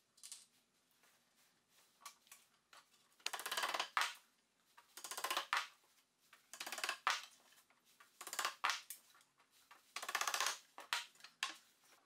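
Plywood panel scraping against a wooden frame and loose tenons as it is worked into place: five short rasping scrapes, roughly one and a half seconds apart.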